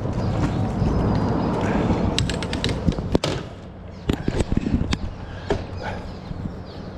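Rod-and-reel handling noise on a boat as a hooked catfish is taken in hand: a low rumble in the first couple of seconds, then a scatter of sharp clicks and knocks.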